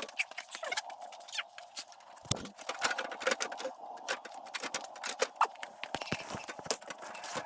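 Irregular light clicks, knocks and scrapes of metal frame pieces being handled and fitted together in a dry run.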